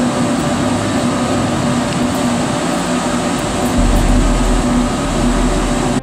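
Biomass pellet burner and its centrifugal blower fan running: a loud, steady machinery noise with a constant hum, and a deeper rumble coming in about four seconds in.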